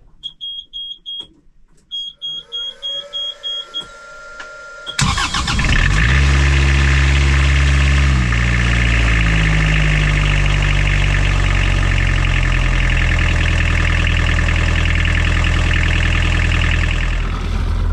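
Beta Marine 35 three-cylinder marine diesel running steadily, heard loud and close in its engine compartment from about five seconds in. Before that the engine is only a faint low hum under a series of short, high beeps.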